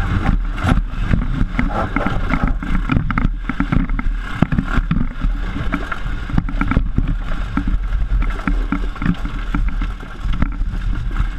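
PGO off-road buggy's engine running as it drives along a bumpy dirt track, with many short knocks and rattles from the jolting chassis.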